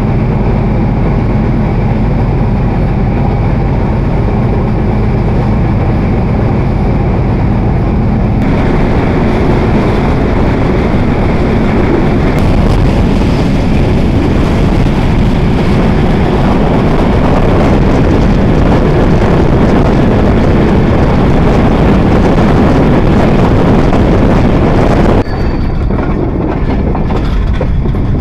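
Loud, steady running noise of a moving intercity passenger train heard at its open door, wheel-and-rail rumble mixed with rushing air. The sound changes abruptly about eight seconds in, turning brighter, and again near the end, turning duller.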